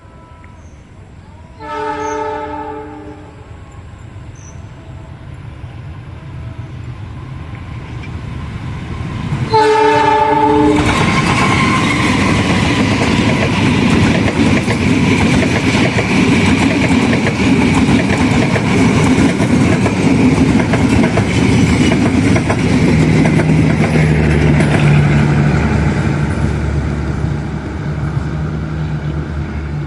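Diesel locomotive horn blown twice, each blast about a second long and several pitches at once, the second as the train arrives; then a passenger train passes at speed, its wheels clattering over the rail joints, the noise easing near the end.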